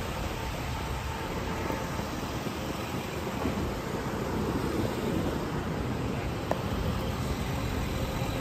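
Steady outdoor city noise with a low rumble of vehicles, and a single short click about six and a half seconds in.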